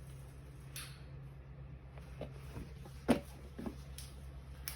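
A few light knocks and clicks from things being handled, the sharpest about three seconds in, over a steady low hum.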